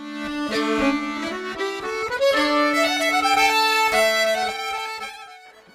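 Violin music: a slow melody of long held notes, fading out near the end.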